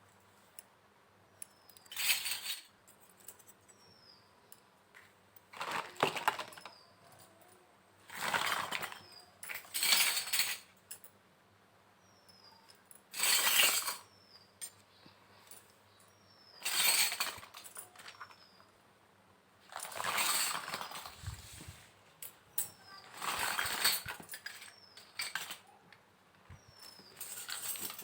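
Small miniature toy kitchen pieces being handled and set down, in separate bursts of clinking and rattling every two to four seconds with quiet gaps between.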